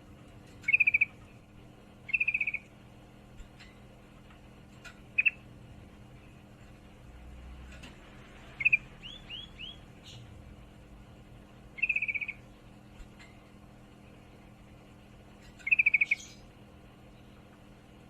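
Female yellow-vented bulbul giving short, rapid chattering trills (the 'ngriwik' call), about six of them a few seconds apart, each under half a second; the call of a female in breeding condition calling for a male.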